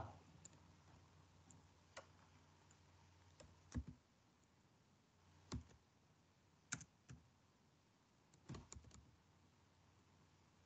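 Faint, scattered keystrokes on a computer keyboard: a few keys at a time with pauses between, as a word is typed slowly.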